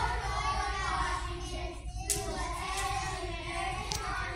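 A large group of young children singing together as a choir, with a couple of sharp hand claps, about two seconds in and near the end.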